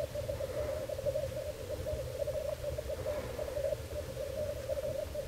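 Black grouse cocks at a lek, their bubbling rookooing song running on as one continuous, wavering chorus.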